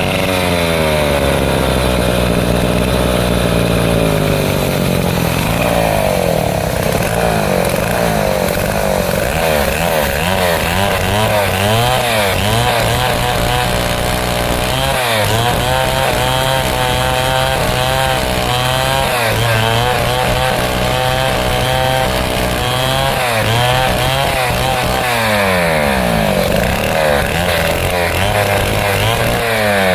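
Stihl two-stroke chainsaw running at full throttle, ripping lengthwise through a large teak log. Its engine note wavers as the bar bogs and recovers under load, with brief dips a little after halfway and again near the end.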